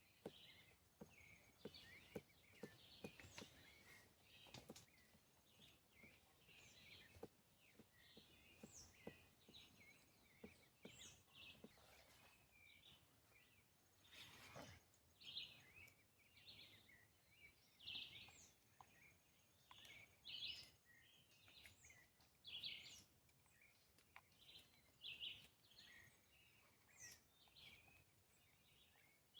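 Faint forest ambience: small birds chirping in short, repeated calls on and off throughout, with a few soft knocks, the clearest about halfway through.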